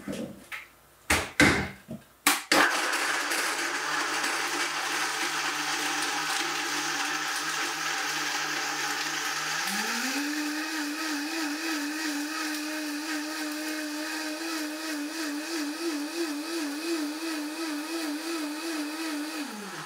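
Countertop blender with a red base blending a thick fruit smoothie with ice. A few knocks come first, then the motor runs steadily at a low speed. About ten seconds in it steps up to a higher pitch that wavers as the contents churn, then it is switched off and winds down just before the end.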